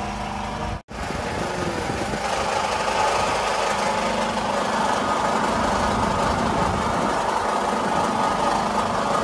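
Engine on a fishing boat running steadily. About a second in there is a brief cut to silence, after which it comes back slightly louder.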